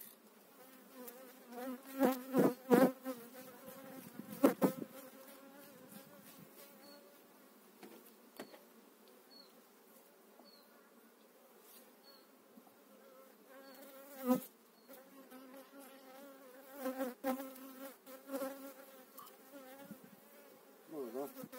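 Honeybees buzzing in a wavering hum around an open hive. A few sharp knocks from working the hive stand out about two to three seconds in, again around four and a half seconds, and once near the middle.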